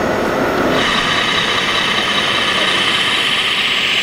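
Small electric motor of a 1/14-scale RC construction model running under load. About a second in it changes abruptly to a steady high whine.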